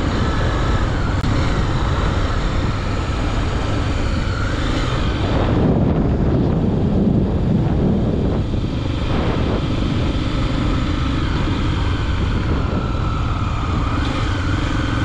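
Honda XR250 Tornado's single-cylinder engine running on the road, buried in heavy wind rush on the microphone, its pitch climbing a little a couple of times.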